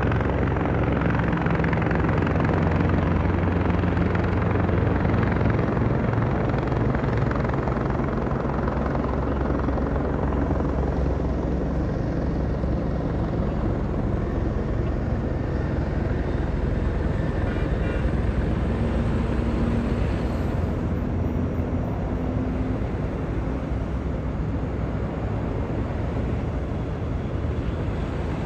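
Steady drone of a helicopter overhead, mixed with the continuous rush of freeway traffic passing below.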